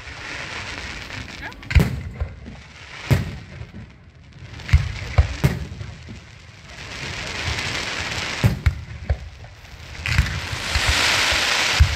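Fireworks and firecrackers going off: about ten irregular sharp bangs, with two stretches of crackling hiss, one in the middle and a louder one near the end.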